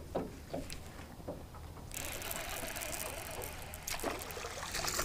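Fishing reel being cranked, a faint ticking whir, as a small fish is reeled in; a steady hiss joins it about two seconds in.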